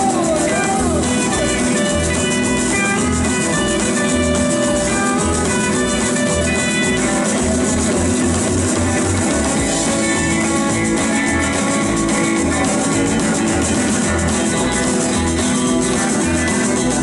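Rockabilly band playing live: strummed acoustic guitar, electric lead guitar, upright double bass and drums. A sung line ends in the first second, and the rest is an instrumental break with a steady pulsing bass line.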